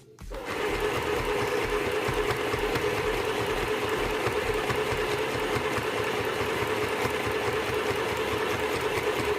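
Mini electric sewing machine running steadily at a fast stitching rhythm on its number 2 stitch. It starts about half a second in and stops suddenly near the end.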